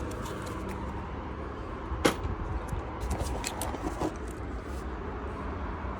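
Scattered clicks and knocks of motorcycle parts being handled while the dash assembly is worked free, with one sharp knock about two seconds in and a few lighter clicks soon after, over a steady low hum.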